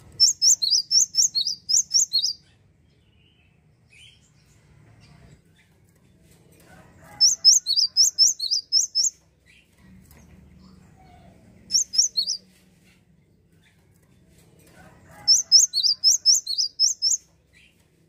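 Cinereous tit (gelatik wingko) singing: rapid runs of repeated high whistled notes, each falling in pitch, about four a second. Three runs of about two seconds each and one shorter one.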